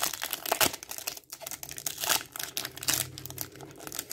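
Foil Yu-Gi-Oh booster pack wrapper crinkling and tearing as it is pulled open by hand, in irregular crackles. The pack is not tearing open cleanly.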